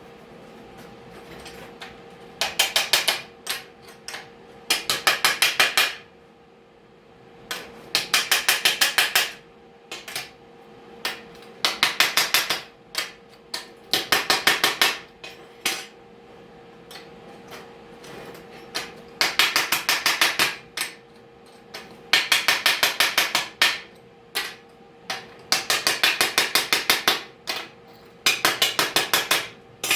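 A hammer striking metal in bursts of rapid blows, each burst about a second long with around ten quick strikes, repeated every second or two.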